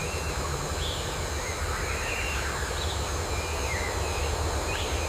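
A steady low rumble under a noisy ambient bed, with a few faint short high chirps now and then.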